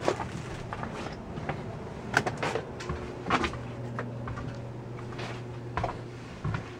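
Footsteps and small knocks along an airliner cabin aisle, a few irregular thuds over about seven seconds, over a steady low hum.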